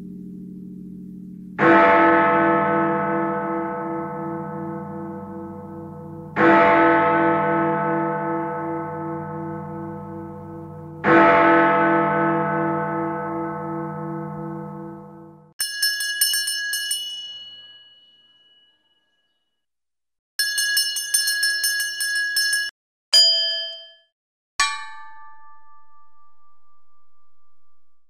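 A large church bell struck three times about five seconds apart, each stroke ringing long with a slow pulsing hum and fading away. Then a smaller, higher-pitched bell rings rapidly in two short bursts with a pause between them, followed by two single strikes, the last ringing on steadily.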